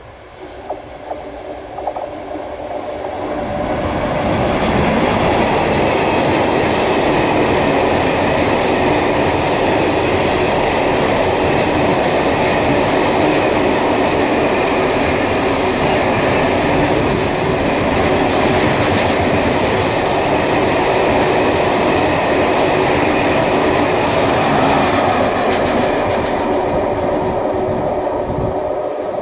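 Freight train hauled by a VR Sr3 (Siemens Vectron) electric locomotive, with a string of Hains covered cellulose wagons, passing at speed. The sound grows over the first few seconds as the locomotive comes up. It is then a loud, steady rush of wheel-and-rail noise as the wagons roll by, and it fades near the end as the tail goes away.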